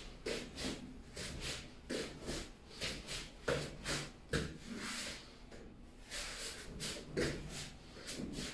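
Swishes of a long staff swung and spun through the air, mixed with bare feet stepping and sliding on foam mats, in an irregular run of short sounds a few times a second.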